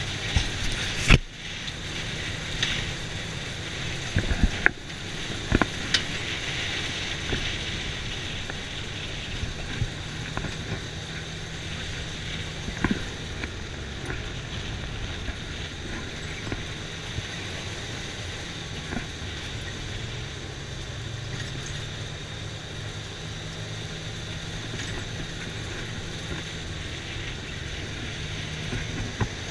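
Side-by-side off-road vehicle driving on a dirt track, its engine running with a steady low hum under wind and ride noise. Several sharp knocks from bumps, most of them in the first six seconds.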